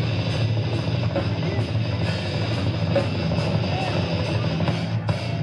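Honduran death metal band playing live: distorted guitars and bass over a pounding drum kit, a dense, loud wall of sound with no break.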